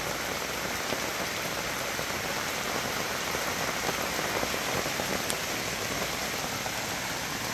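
Steady, hard rain falling on a fabric RV awning overhead and the wet ground around it: an even hiss with small scattered drop ticks.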